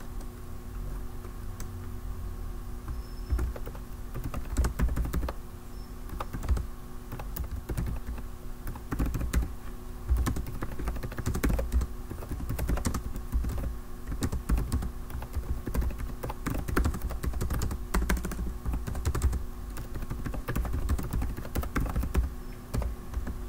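Typing on a computer keyboard: irregular runs of key clicks with short pauses between bursts.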